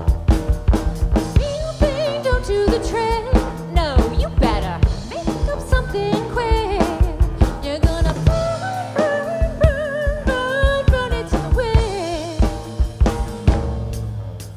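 Live rock band playing: a steady drum-kit beat under a lead line that bends and wavers in pitch. The drums drop out and the music fades near the end.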